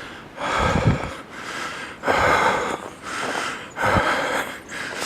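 A man breathing hard in the cold, three heavy breaths about two seconds apart.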